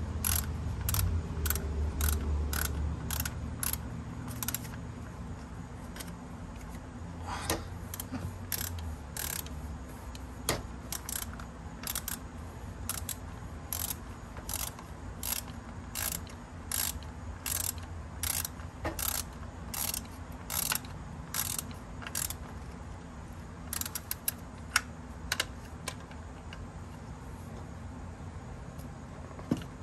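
A 3/8-inch ratchet with a 10 mm socket clicking as it is worked back and forth, tightening the ignition coil hold-down nuts. The clicks are short and evenly paced, about three every two seconds, with a low rumble in the first few seconds.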